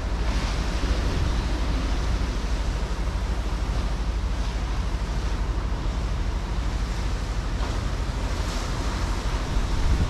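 Caribbean Sea waves washing in steadily, with a couple of louder surges. Wind buffets the microphone as a steady low rumble underneath.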